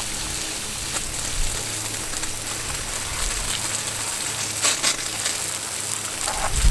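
Water from a garden hose spraying onto a spray-painted rifle, a steady hiss that briefly grows louder about two-thirds through, rinsing off the dish soap used as a paint mask.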